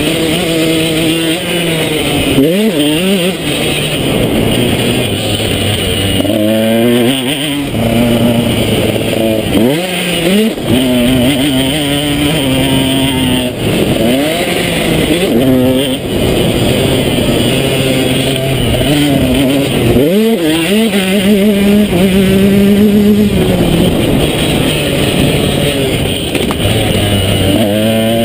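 2012 KTM 125 SX's single-cylinder two-stroke engine being ridden hard on a motocross track: the revs climb again and again, about seven times, falling back between gear changes and throttle lifts.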